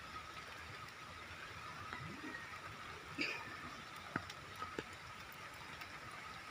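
Faint outdoor background: a steady hiss with a thin, steady high whine. A short high chirp comes about three seconds in, and two sharp clicks follow a second or so later.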